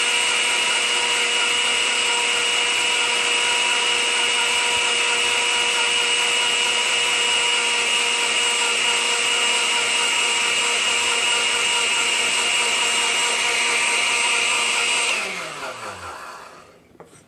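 Electric countertop blender running steadily on puree, blending lemon juice as olive oil is drizzled in through the lid. About fifteen seconds in it is switched off and the motor winds down to a stop, its whine falling in pitch.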